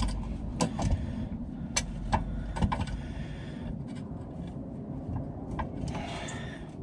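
Scattered sharp clicks and knocks of hand grips working on a diesel fuel filter housing under the car, being loosened, over a low rumble, with a short scraping rasp about six seconds in.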